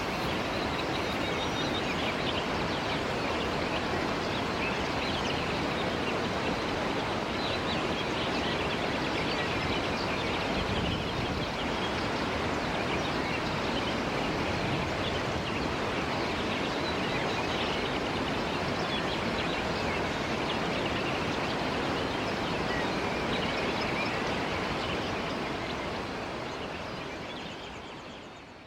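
Mountain waterfall rushing in a steady, unbroken roar of falling and splashing water, fading out near the end.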